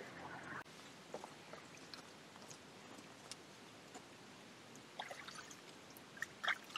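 Faint trickle of water at a small game watering trough fed by a pipe, only a little water running. A few soft knocks and rustles from hands working at the trough, the loudest near the end.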